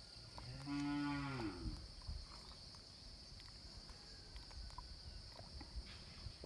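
A cow moos once, a single call of about a second that rises and falls in pitch. A steady high insect drone continues behind it.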